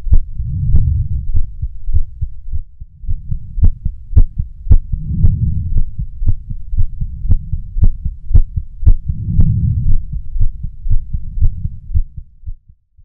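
Horror trailer sound design: a low rumbling drone that swells about every four seconds, under a steady pulse of sharp ticks about twice a second. It cuts off abruptly near the end.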